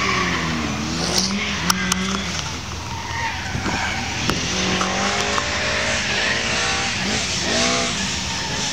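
Rally car engine revving hard, the revs rising and dropping again and again as it works through the gears, with tyres squealing on tarmac.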